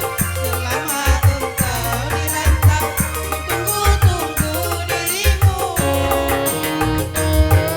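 Music from an organ tunggal keyboard band: a wavering melody line, sung or played on the keyboard, over a steady hand-drum and bass beat with regular cymbal ticks.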